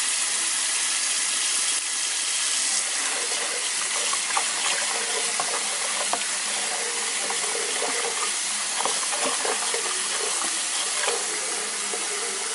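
Kitchen tap running into a plastic tub of raw shrimp in a stainless steel sink, a steady splashing hiss. From about three seconds in, a hand swishes the shrimp through the water, adding sloshing and small splashes.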